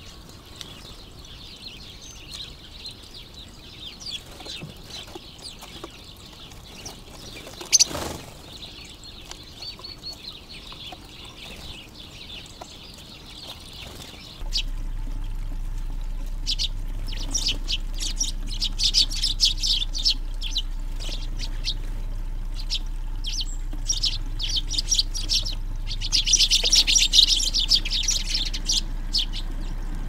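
Sparrows chirping at a garden feeder, soft at first and much busier from about halfway, with a dense burst of chirping near the end. From about halfway the splashing of a small bird-bath fountain and a low steady hum run beneath. A single sharp knock comes about a quarter of the way in.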